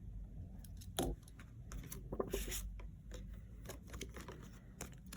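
Quiet rustling of paper with light clicks and scrapes: play-money notes being handled and slipped into a budget binder envelope.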